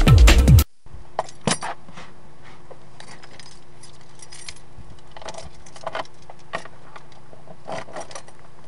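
Electronic music cuts off just under a second in; then a bunch of keys on a lanyard jangles and clinks at a golf cart's ignition, in scattered short bursts over a low steady hum.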